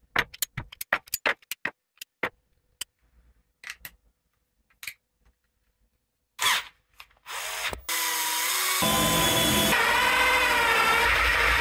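A run of sharp clicks, then a power drill with a large core bit (hole saw) starts about seven seconds in and runs steadily with a wavering whine, boring a cable hole through a cabinet panel.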